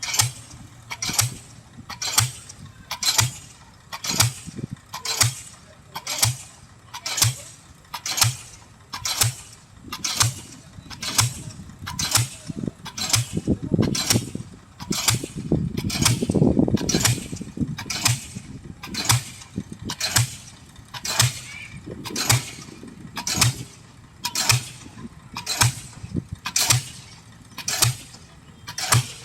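Pile-driving hammer striking a ground pile in a steady rhythm, one sharp impact about every second. A low rumble swells up about halfway through and fades again.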